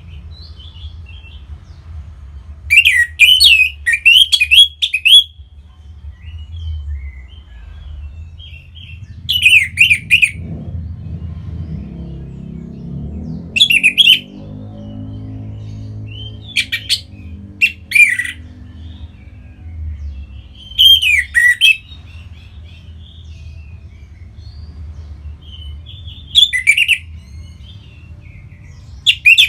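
Orange-headed thrush singing in short, loud, warbled phrases with gaps of a few seconds between them, over a low background rumble that swells in the middle.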